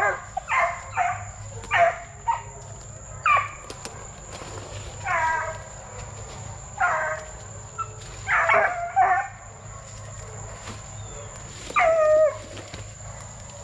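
Young Plott Tan hounds (Plott hound crossed with black and tan coonhound) barking out of sight: short, yelping bawls, each dropping in pitch, about one every one to two seconds, quickest in the first couple of seconds.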